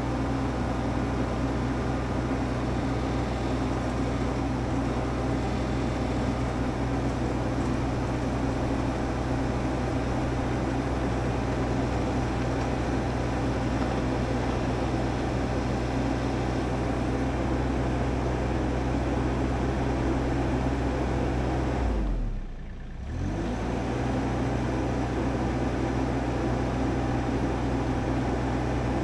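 Stihl MS661 chainsaw running steadily on a Logosol F2+ chainsaw mill, ripping a white pine log. About 22 seconds in, the engine speed drops briefly and comes back up.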